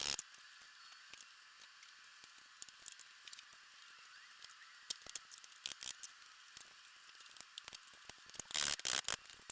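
Scattered small clicks, taps and scrapes of hand work on small parts, with a louder brief scraping noise about eight and a half seconds in.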